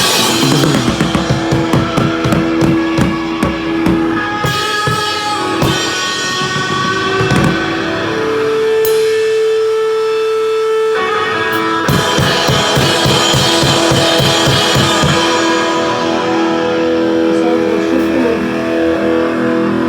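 Rock band playing electric guitar and drum kit. The drums drop out about eight seconds in, leaving a held guitar chord, then come back in about four seconds later and thin out near the end under sustained guitar notes.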